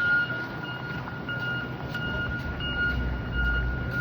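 Backup alarm on snow-removal trucks beeping steadily, a couple of short high beeps a second, over the low rumble of their engines. The rumble swells briefly near the end.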